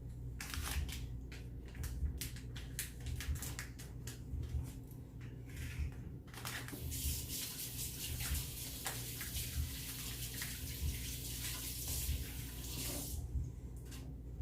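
A run of quick clicks and rustles of handling, then a kitchen tap running steadily for about six seconds before it shuts off.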